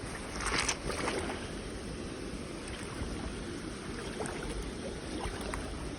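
Creek water running steadily, with a short rustling scrape about half a second to a second in and a few faint clicks later on.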